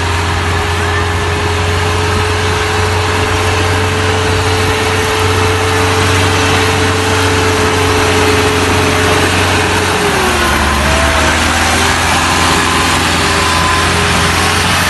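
Tractor diesel engine running loud and steady; its note drops a little about ten seconds in.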